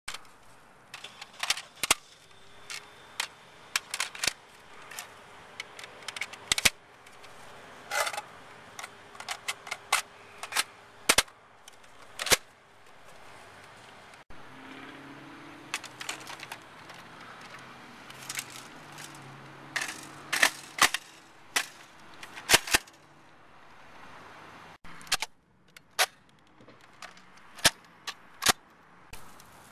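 Sharp plastic clicks and clacks of Nerf foam-dart blasters being handled, with magazines snapped in and slides primed. The clicks come irregularly and in quick clusters over a faint outdoor background.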